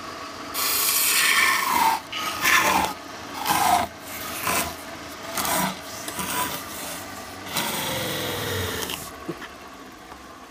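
A steel turning tool scraping into spinning wood on a lathe in a run of rough cutting strokes, cutting in at the base of a turned salad bowl to part it off its waste block. The cutting stops about 9 seconds in, leaving only a quieter steady running sound.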